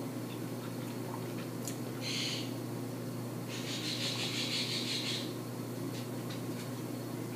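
Sips of an iced drink from a glass: two short hissy slurps, the second longer, over a steady low hum.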